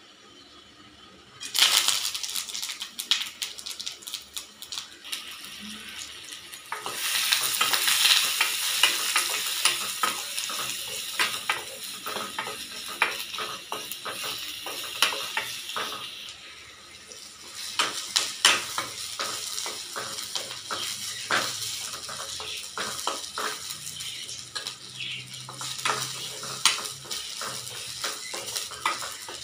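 Oil sizzling in a steel kadai as ingredients go into the hot pan, starting suddenly about a second and a half in and growing louder again about seven seconds in, as sliced onions, curry leaves and green chillies fry. A spoon clinks and scrapes against the pan throughout while the mixture is stirred.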